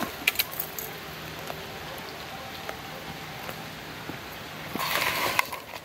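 A hooked river chub being played on spinning tackle at the water's edge, with splashing water and a brief rushing splash about five seconds in. A few sharp clicks come in the first second.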